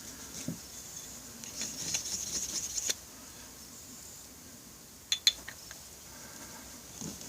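Brake caliper parts being handled on a workbench: a scratchy rubbing for about a second and a half, then two or three sharp metallic clicks about five seconds in.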